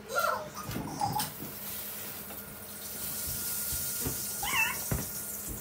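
Three short, high-pitched wavering cries: one near the start, one about a second in, and a clearer one near the end, over a steady background hiss.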